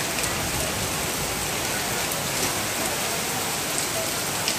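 Heavy rain pouring steadily onto a street, a dense even hiss with a few close drops ticking now and then.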